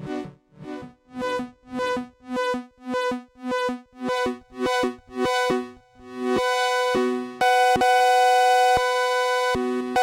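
Sequential Prophet-6 analog polyphonic synthesizer played dry. A pitched chord pulses about twice a second, then from about six seconds in gives way to held chords that cut off sharply.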